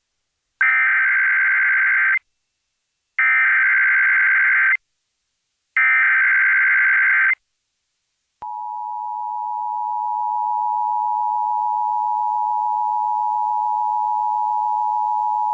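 Emergency Alert System tones announcing a Child Abduction Emergency (AMBER Alert). First come three bursts of the SAME digital header, each a buzzy data screech about a second and a half long with short gaps between. About eight seconds in, the two-tone attention signal starts and holds steady.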